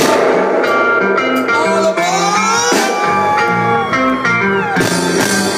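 Reggae band playing live: a stepping bass line under guitar and drum hits, with gliding melodic lines on top.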